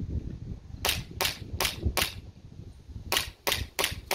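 G&G GTP9 gas blowback airsoft pistol firing eight sharp shots in two quick strings of four, with about a second's pause between the strings.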